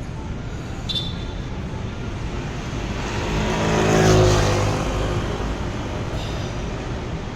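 A motor vehicle passing by over steady traffic noise, swelling to its loudest about four seconds in and then fading away.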